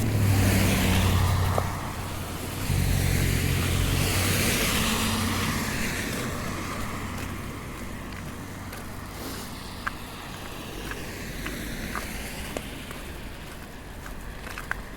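Road traffic passing close by: two vehicles go past in the first six seconds with engine drone and tyre hiss, then the traffic noise fades to a lower hiss.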